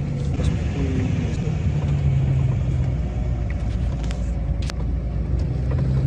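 Car engine and road rumble heard from inside the cabin while driving, a steady low drone with a few light clicks and rattles.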